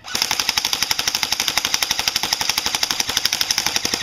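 G&G Combat Machine AK-47 airsoft electric gun firing on full auto: one continuous burst of rapid, evenly spaced shots, about fifteen a second, from its battery-driven gearbox cycling.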